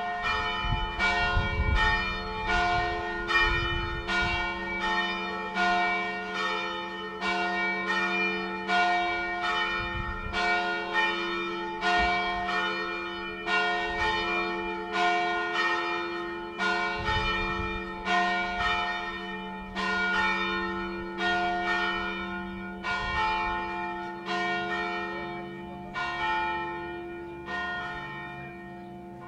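Church bells ringing: a steady run of strokes over a lingering hum, dying away over the last few seconds.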